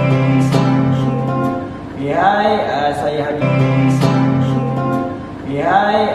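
Music: acoustic guitar with a singing voice, a short phrase repeating about every three and a half seconds.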